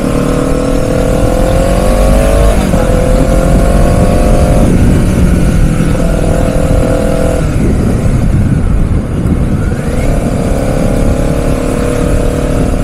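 Honda CBR 250 sport-bike engine under way, its note climbing as it pulls, with short breaks at gear shifts about two and a half and five seconds in, easing off for a couple of seconds past the middle, then pulling again near the end. Heavy wind rumble on the microphone.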